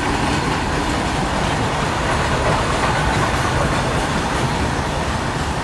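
Steady running noise of an express passenger train at speed, heard at the open side of the coach: wheels rumbling on the rails and wind, with a goods train of open freight wagons running alongside on the adjacent track.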